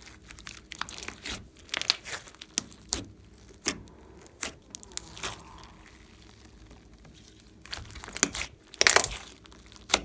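Thick glossy slime mixed with clay being stretched, folded and pressed by hand, giving irregular sticky crackles and pops. The crackling thins out for a couple of seconds in the middle, then comes back loudest about nine seconds in.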